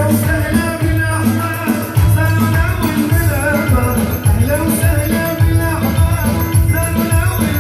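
Loud live Arabic dance music, with a heavy, steady bass beat under a wavering melody line and a male singer on a handheld microphone.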